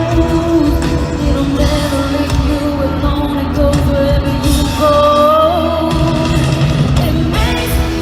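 Live pop-country band with a woman singing lead.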